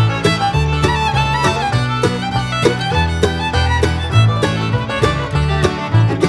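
Upbeat background music in a bluegrass/country style, with fiddle over plucked strings and a steady bass beat.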